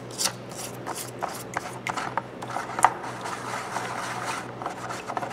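A stiff brush scrubbing a rusty steel T-handle tap wrench in a shallow tray of liquid, in quick, uneven strokes, with one sharp click about three seconds in. The brush is working off rust loosened by a three-day vinegar soak.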